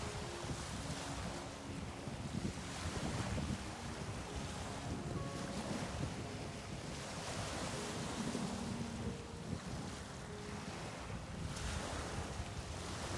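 Ocean waves washing in and drawing back, the surf rising and falling every few seconds, with wind rumbling on the microphone.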